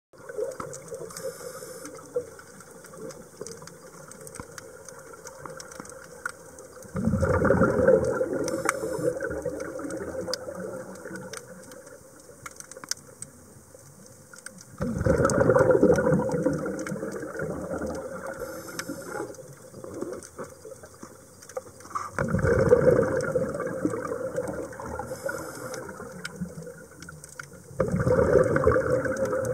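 A scuba diver breathing through a regulator underwater: a burst of exhaled bubbles about every seven seconds, four times, with a fainter hiss of inhalation between them. A faint, steady underwater crackle lies beneath.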